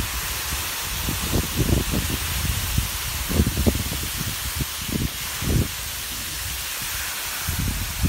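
Waterfall pouring down a rock face into a plunge pool: a steady rushing hiss of falling water, with irregular low rumbles on the microphone.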